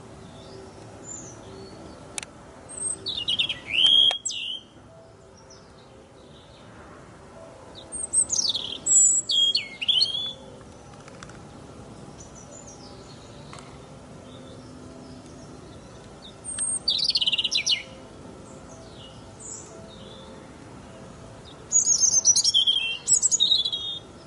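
European robin singing: four short phrases of high, thin, quickly changing notes with sliding whistles and trills, separated by pauses of several seconds.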